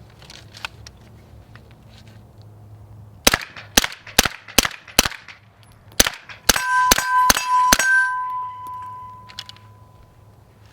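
Suppressed CZ Scorpion Evo 9mm carbine fired in two strings of five, about two to three shots a second: five shots at a paper target, a short pause, then five at a steel target, whose hits clang and leave a ringing tone that fades away over a couple of seconds.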